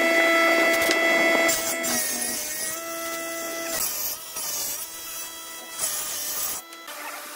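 Combination jointer-planer running with a steady motor hum while a hardwood board is fed over its cutterhead. Several bursts of cutting noise come as the blades take the board, and the motor's pitch dips slightly under the load.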